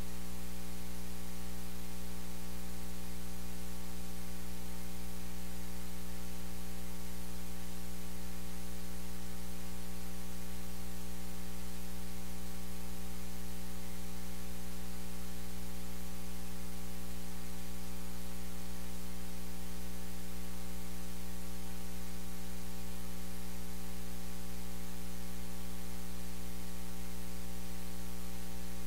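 Steady electrical mains hum with its overtones, over a constant static hiss; nothing else comes through.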